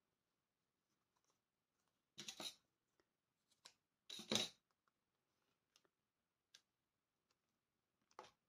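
Scissors snipping through ribbon twice, about two seconds in and again about four seconds in, the second cut the louder, with a few faint handling ticks between.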